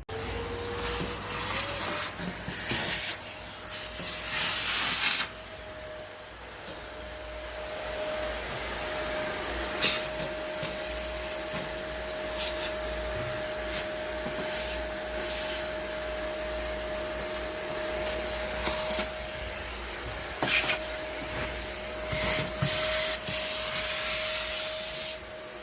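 Vacuum cleaner switched on and spinning up to a steady motor whine, cleaning out a car's battery tray. Its rushing suction swells and fades as the nozzle moves, loudest early on and again near the end.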